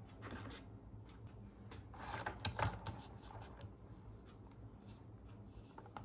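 Light plastic clicks and scratches from hands handling a toy RC car and its remote on a tabletop, thickest about two to three seconds in, over a faint steady low hum.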